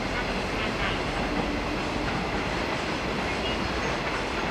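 Freight train of container-laden flat wagons rolling past, a steady noise of steel wheels on the rails.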